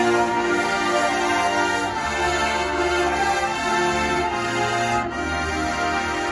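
Drum and bugle corps horn line playing a slow, sustained brass chord passage, with a deeper bass layer coming in about two seconds in.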